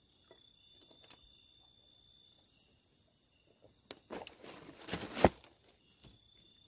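Steady high chirring of crickets and other insects, with a short burst of rustling about four seconds in that ends in a sharp knock, the loudest sound.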